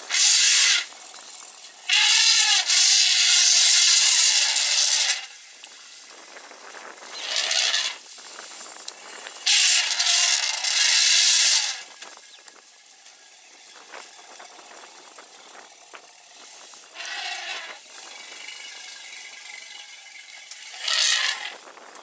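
African bush elephants trumpeting in six harsh, loud blasts, two of them long, about three seconds and two seconds; the herd is reacting around a newborn calf.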